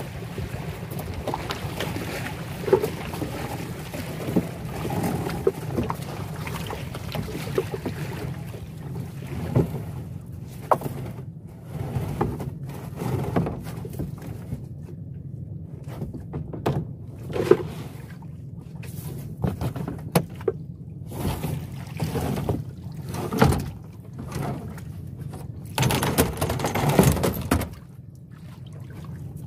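Fishing net being hauled into a small boat by its rope: irregular knocks and thumps against the hull over a steady low wash of wind and water, with a longer rush of dripping, rustling noise near the end as the wet net comes over the side.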